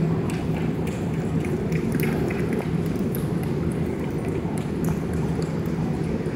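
Steady low hum of a large indoor arena, with faint hoofbeats of a pony trotting past on dirt footing pulling a light cart.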